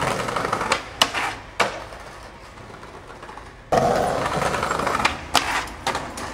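Skateboard wheels rolling over paving stones, with several sharp clacks of the board against the ground. The rolling noise dies down, then returns louder all at once past the middle, followed by a few more clacks.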